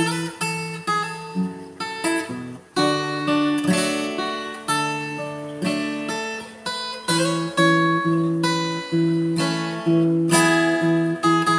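Acoustic guitar played solo as a song's instrumental intro: picked and strummed chords, about two a second, each one ringing out and fading before the next.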